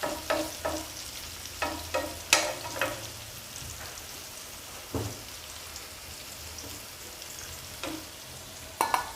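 Diced potato, carrot and capsicum frying gently in a pan, with a spatula scraping and tapping against the pan several times as the vegetables are spread out evenly; the scrapes come thick in the first few seconds, then only now and then.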